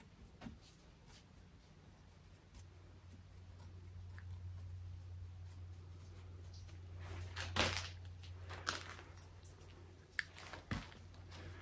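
Faint handling sounds of a small paintbrush dabbing liquid patina onto a gold-leafed wooden carving, with a few light clicks and taps as the brush and the small glass patina jar are handled; the loudest click comes about two thirds of the way in. A low steady hum runs underneath.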